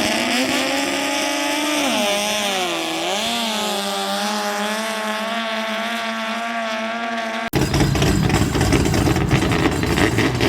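Racing speedboat engine running at high revs, its pitch dipping briefly about a third of the way in and then recovering. About three-quarters of the way through, the sound cuts abruptly to a rougher, noisier engine note.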